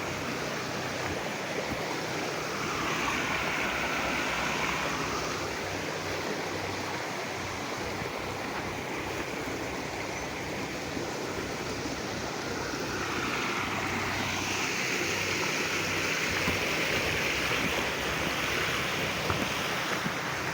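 River water flowing: a steady rushing that swells a little twice.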